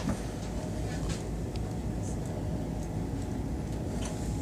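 Steady low running rumble of an ICE high-speed train, heard from inside the passenger car as it crosses a steel truss bridge.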